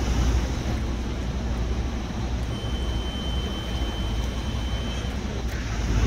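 Steady low rumble, with a thin high steady tone held for about two and a half seconds in the middle.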